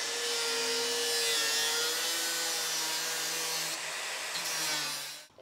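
Angle grinder grinding off the bottom edge of a steel car roof skin: a steady motor whine under the high hiss of the disc on the metal, which cuts off suddenly near the end.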